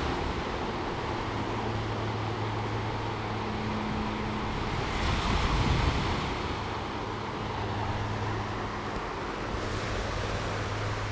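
Ocean surf washing in on the beach, with a louder wave surging about five seconds in, over a steady low hum.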